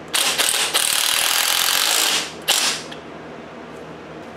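Cordless impact wrench hammering for about two seconds, then a short second burst, run down on the top-mount nut of a Pedders coilover.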